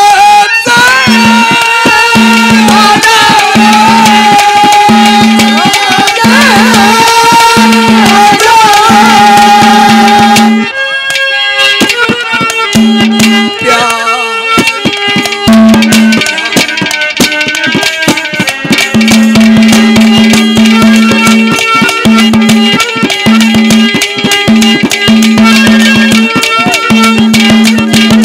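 Live Haryanvi ragni accompaniment: hand drums playing a driving rhythm under a wavering, gliding melody line. The music drops off briefly about ten seconds in, then the drumming picks back up.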